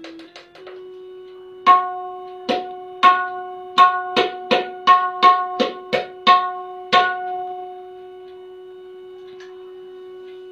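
A high-pitched tabla dayan tuned to F sharp, struck about a dozen times at an uneven pace, each stroke ringing with a clear pitch. A steady drone tone at the same pitch sounds under it and carries on alone after the strokes stop.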